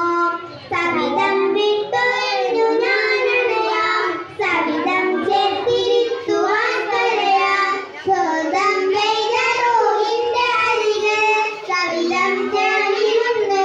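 A child singing a melodic song in long, wavering phrases, pausing briefly for breath about every four seconds.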